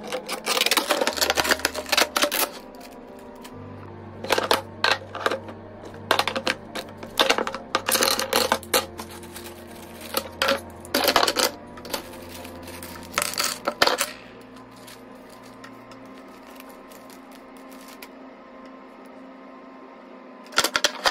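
White plastic parts of an IKEA storage stand clattering and knocking together as they are unpacked and handled: a quick, uneven run of clicks and knocks for about the first fourteen seconds, then a brief clatter again at the very end. Soft background music plays throughout.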